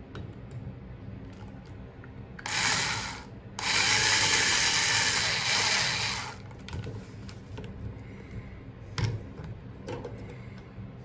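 Cordless electric screwdriver whirring as it backs out a faucet handle's retaining screw, in two runs: a short one of about a second, then a longer one of nearly three seconds. A short click follows near the end.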